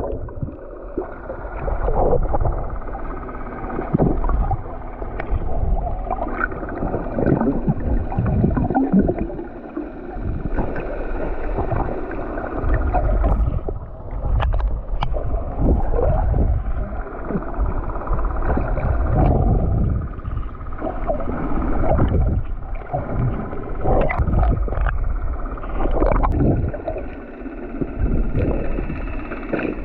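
Sea water sloshing and gurgling against the hull of a small banca outrigger fishing boat, in uneven surges over a low rumble.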